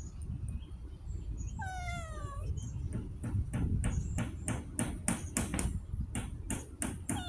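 A cat meows once, a single falling call about one and a half seconds in. It is followed by a quick run of sharp clicks or taps, about three a second, over steady low background noise.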